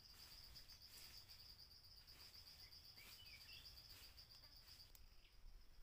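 Faint, steady, high-pitched insect trill with a rapid pulse, weakening near the end, with a couple of faint bird chirps about halfway through.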